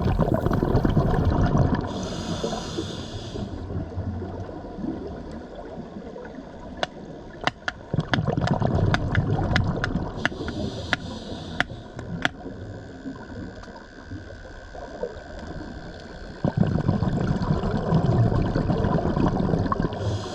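Scuba diver breathing through a regulator underwater: a short hissing inhale and a longer bubbling exhale, repeating every eight seconds or so, with a run of sharp clicks in the middle.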